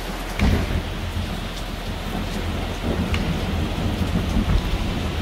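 Heavy rain falling, with thunder rumbling that swells several times, and a few sharp drip-like ticks.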